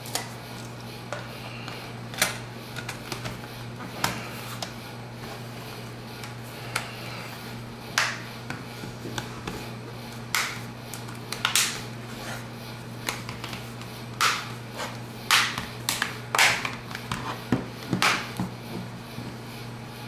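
Plastic back cover of a 7-inch tablet being pressed onto its frame, its clips snapping shut one after another around the edge. The clicks come more often in the second half, over a steady low hum.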